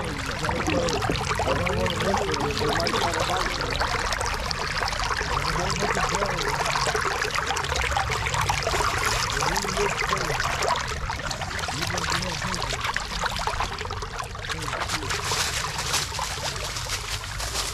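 Stream water running in a steady rushing flow.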